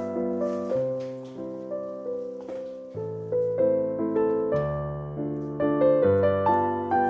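Background piano music: a gentle melody of notes struck one after another over low sustained chords.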